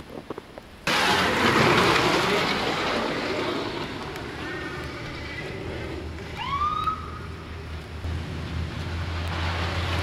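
Loud, steady rush of wind and traffic noise on a snowy street. About six and a half seconds in, an ambulance siren gives a couple of short rising whoops. Near the end the low rumble of the approaching ambulance's engine grows.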